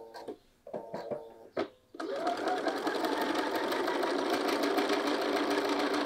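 Bernina electronic sewing machine stitching a seam through layered canvas bag fabric: a few short stitching bursts just after pivoting at a corner, then a steady run of stitching from about two seconds in.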